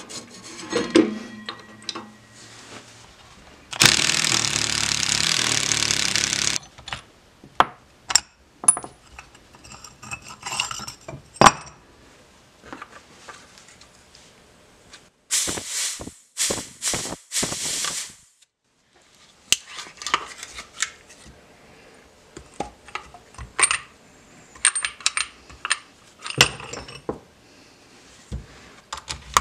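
Metal tools clicking and knocking against a motorcycle hydraulic brake caliper as it is taken apart. A loud steady noise runs for about three seconds near the start, and four short loud bursts come in the middle.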